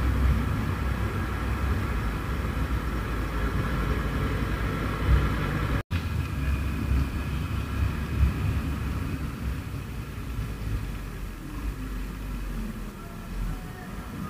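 Motorcycle being ridden through city traffic: a steady low engine and road rumble, which drops out for an instant about six seconds in.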